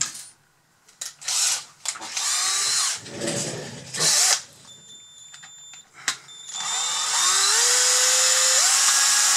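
Knocks and clatter of a cordless drill being picked up and handled, then the drill starting about two-thirds of the way in and running steadily, its pitch climbing as it speeds up. It is driving the worm gear of a Bruder CAT D11 model bulldozer's screw-type track tensioner.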